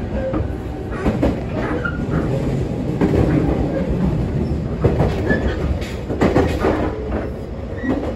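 Running noise heard inside a JR Kyushu 813 series electric train car: a steady low rumble with sharp clacks of the wheels over rail joints, several times.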